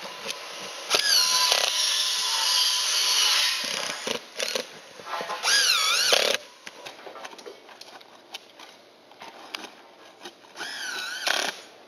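Power drill driving screws through an aluminium solar-panel mounting flange into the roof, running in one long burst of about three seconds and then shorter bursts, its motor whine swinging up and down in pitch.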